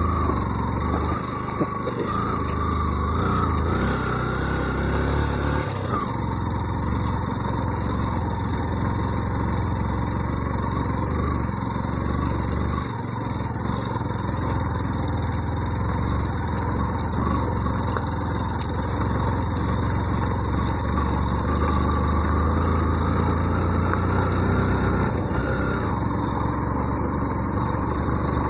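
Yamaha FZ V2 motorcycle's single-cylinder engine running steadily while riding, its pitch rising and falling a little with the throttle.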